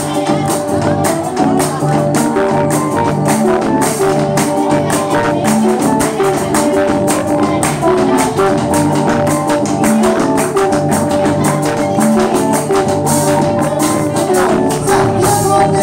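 A live band playing guitars over congas, with a steady, busy percussion rhythm.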